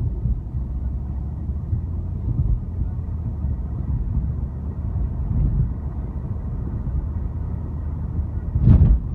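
Steady low rumble of a car's engine and tyres, heard from inside the cabin while driving. A short, louder burst of noise comes near the end.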